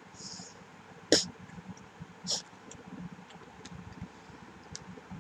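Quiet mouth sounds of someone eating fairy bread and licking her fingers: a few short wet clicks and smacks, the loudest about a second in and another a little after two seconds.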